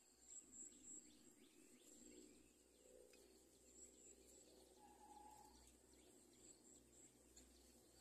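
Near silence: faint outdoor ambience with an insect trilling on and off and a few faint, distant bird chirps.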